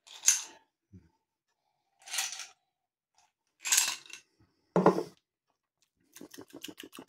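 Sips of brandy taken over ice, short noisy slurps a second or so apart. The glass is then set down on a granite worktop with a knock. Near the end comes a quick run of small clicks.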